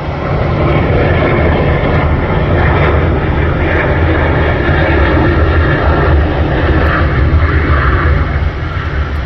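Jet airliner's turbofan engines passing close by: a loud, steady rumble with a hissing roar on top, swelling just after the start and easing off near the end.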